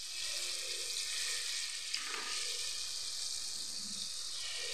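Unniyappam batter frying in hot oil in the wells of a cast-iron unniyappam pan: a steady, even sizzle as ladlefuls of batter go into the oil, with a single light click about two seconds in.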